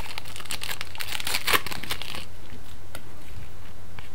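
Wrapper of a Donruss Elite Extra Edition baseball card pack crinkling and tearing as it is ripped open by hand, busiest in the first two seconds, then a few lighter rustles.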